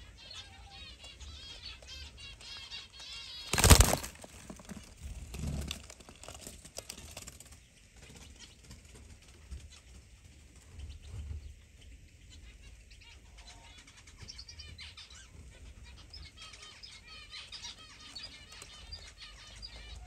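Small aviary birds chirping busily, with a brief, loud flutter of wings about four seconds in as the dove leaves the nest, and soft rustling of straw as the nest is handled.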